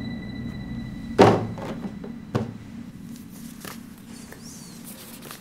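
A door's deadbolt being turned and locked: a heavy thunk about a second in, then a second, lighter clunk about a second later, followed by faint clicks and rustling.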